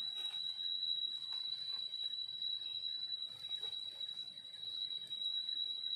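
Steady high-pitched insect drone, one unbroken tone, over faint scraping and rustling as a knife digs into dry soil and leaf litter.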